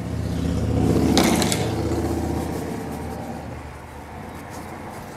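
A passing vehicle's engine hum, swelling to its loudest about a second in and fading away over the next few seconds.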